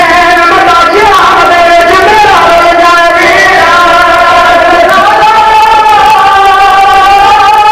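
A zakir chanting masaib, the mournful lament for the sufferings of Imam Hussain's family, in a loud voice with long, held, wavering notes.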